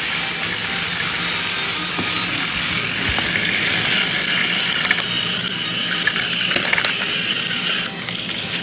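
Motorised toy train running on plastic track, its small geared motor whirring with a clicking rattle. A higher whine joins about a third of the way in and stops shortly before the end.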